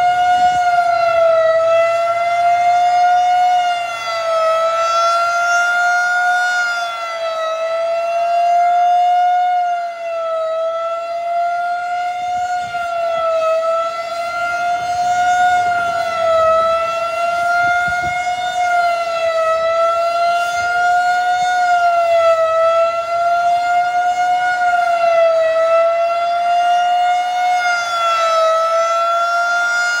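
Rotating outdoor warning siren sounding a steady alert tone during a test. Its pitch wavers slightly, and its loudness swells and fades every few seconds as the horn turns toward and away.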